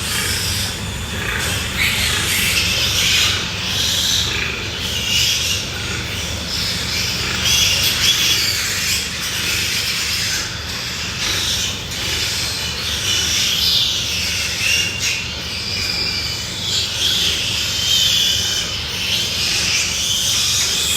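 Pigs squealing, a continuous jumble of high-pitched calls over a steady low hum.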